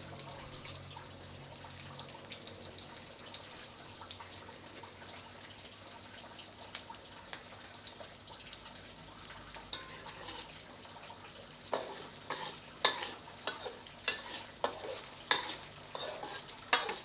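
Food frying in hot oil in a pan, a steady sizzle. From about twelve seconds in come sharp knocks and scrapes about once a second.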